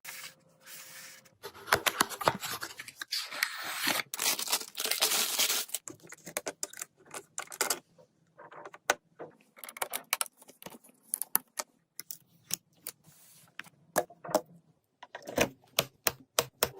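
Small hard parts being handled: a run of sharp clicks, clatter and scraping, with the densest scraping in the first few seconds, typical of fitting desktop PC components and screws together.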